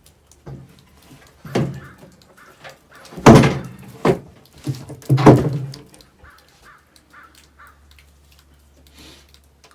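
A series of heavy wooden thumps and knocks, four loud ones in the first six seconds, then lighter knocks: boards and a maple burl being set down and positioned on the sawmill deck.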